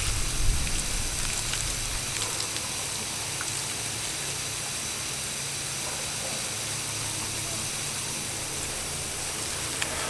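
Garden hose running, a steady hiss of water spraying over a rifle to rinse off dish soap after the camo spray paint.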